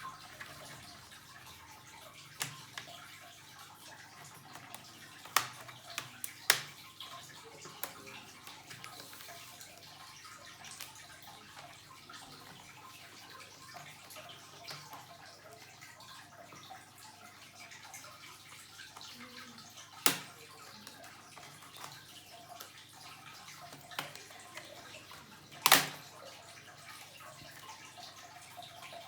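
Scattered sharp clicks and taps of small laptop parts and tools being handled during an SSD swap, about six in all with long gaps between them, the loudest two in the second half, over a steady hiss.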